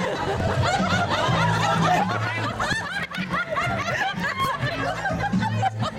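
A group of people laughing and chuckling, many voices overlapping, over background music with a low bass line.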